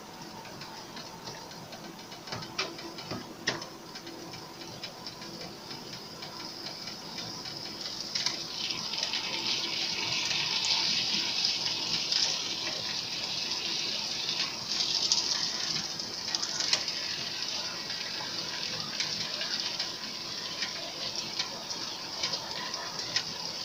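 Pieces of cooked beef sizzling as they fry in hot butter and olive oil with spices in a nonstick pan. A few clicks come as pieces go in two to four seconds in, and the hiss swells about eight seconds in as more meat is added, staying strong for several seconds.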